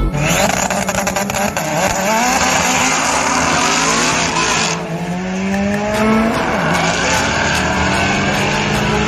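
Drag-racing car at full throttle: the engine revs hard with tyre squeal for the first few seconds, then pulls up steadily in pitch and drops back about six seconds in, as at a gear change.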